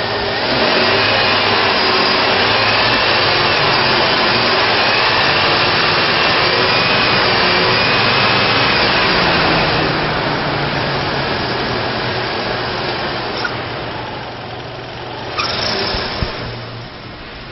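2005 GMC Envoy's 4.2-liter inline-six engine running; it is louder for the first ten seconds or so, then settles lower, with a brief louder burst about fifteen seconds in.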